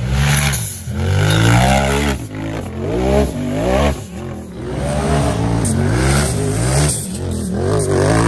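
Off-road UTV buggy engine revving hard under load on a hill climb. The revs rise and fall in repeated surges, about once a second.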